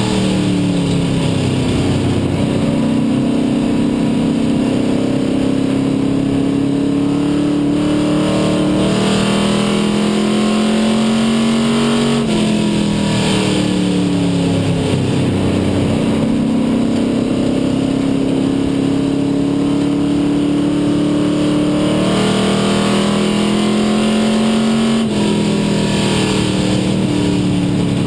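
Dare Stock race car's engine heard from inside the cockpit at race speed, its pitch dropping as the driver lifts for each turn and climbing again along the straights.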